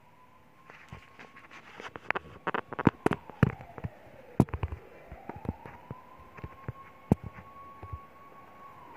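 A run of sharp clicks and knocks, loudest a few seconds in, as the phone filming is handled and set down on the table. Under them a faint siren wails slowly up and down.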